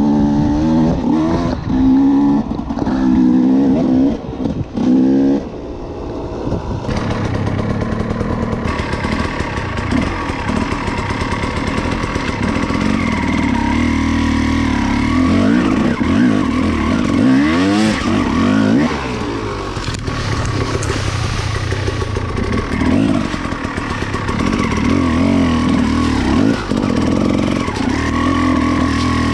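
Dirt bike engine revving up and down under throttle as it is ridden, its pitch rising and falling; the throttle is blipped in short bursts for the first few seconds, then held more steadily.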